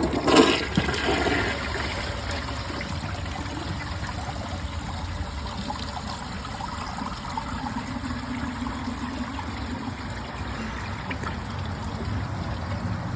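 2018 Mansfield Summit dual-flush toilet flushing: a sudden loud rush of water about half a second in, then a steady run and swirl of water in the bowl. The bowl fails to clear and clogs on its test load.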